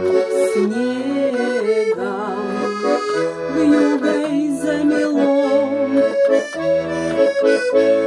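Garmon, a small Russian button accordion, playing an instrumental passage without singing: a melody in the right hand over regular low bass-and-chord notes from the left.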